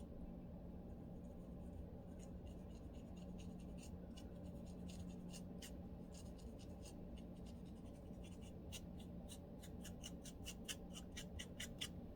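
Fine-toothed lice comb scratching a dry, flaky scalp with dandruff, in short rasping strokes. The strokes come irregularly at first, then in a quicker run of about three to four a second near the end.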